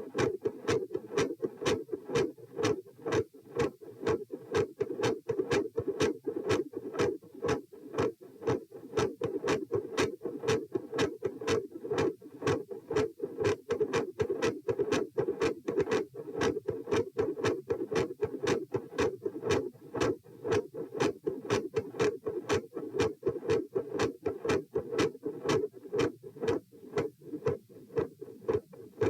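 Heart sounds recorded over the pulmonary area: a fast, regular run of lub-dub beats with a loud second heart sound and a first sound that varies in strength, over a steady low hum.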